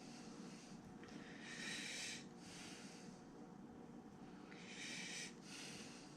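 Faint breathing through the nose close to the microphone: two breaths, each an in-breath followed by an out-breath, about three seconds apart.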